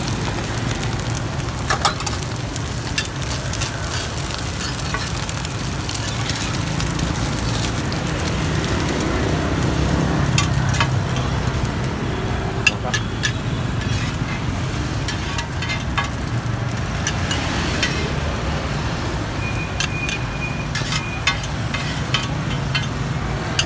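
Food sizzling in oil in a hot pan, with frequent sharp clinks and scrapes of a spatula being worked against the pan, over a steady low rumble.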